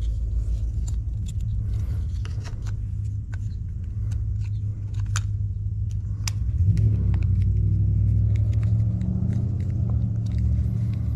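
A low, steady hum with a rumble, and scattered light clicks and taps of small plastic parts as a steering-wheel control box is fitted into its housing.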